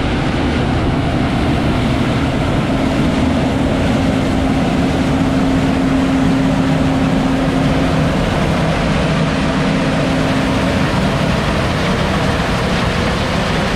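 Combine harvester running steadily at work harvesting corn, with a steady hum that comes in about two seconds in and fades near the end.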